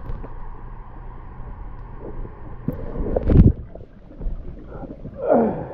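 Pond water sloshing and gurgling as the floating pond liner is pushed back down, with wind rumbling on the microphone. There are irregular swishes, the loudest about three seconds in.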